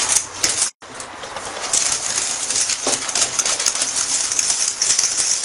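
Wire whisk beating a mascarpone and egg-yolk mixture in a stainless steel bowl: a fast, steady run of clicks and scrapes of the wires against the metal. It breaks off briefly a little under a second in.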